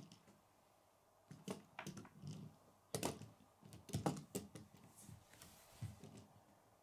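A plastic K'nex toy car handled on a wooden tabletop: a string of light plastic clicks and knocks as it is moved, tilted and set down, busiest in the middle.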